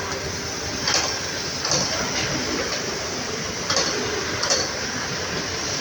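JYL automatic cap sewing machine running, a steady mechanical clatter with several short, sharp hissing clicks at irregular moments as it works.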